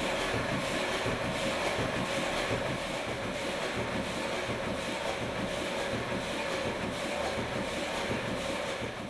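Dominant sheet-fed offset printing press running, a steady fast mechanical clatter as it prints and stacks sheets.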